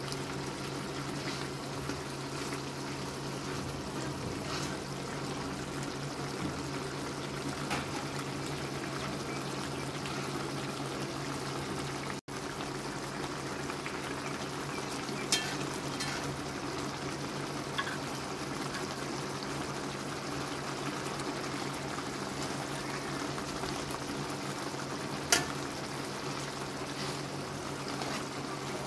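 Fish and potato curry gravy bubbling at a steady boil in an aluminium pan, with a few sharp clicks of a metal spatula and spoon against the pan as the fish is turned. The loudest click comes near the end.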